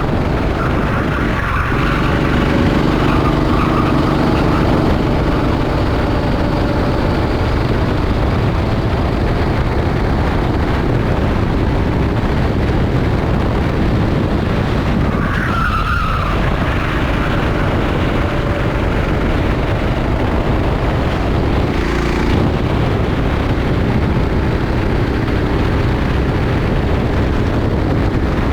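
Rental go-kart engine running hard at racing speed, its note rising and falling through the lap, with a brief tyre squeal about halfway through.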